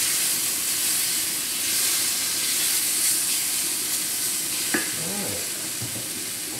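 Diced red bell peppers sizzling in a flour-and-oil roux in a stainless steel skillet, a steady frying hiss, with a silicone spatula stirring and scraping them around the pan. One sharp tap a little under five seconds in.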